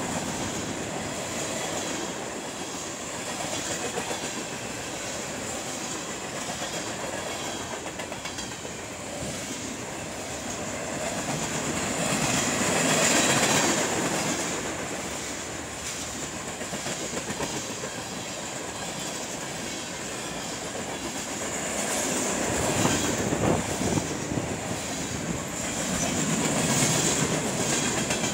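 Freight cars of a mixed train (tank cars, covered hoppers and boxcars) rolling past close by: steady steel-wheel rumble with wheels clicking over the rail joints, growing louder about halfway through and again near the end.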